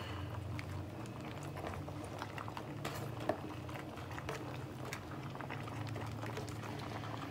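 Thick peanut kare-kare sauce simmering in a pan: scattered soft bubbling pops over a steady low hum. Light rustles come as handfuls of yardlong beans are dropped onto the greens.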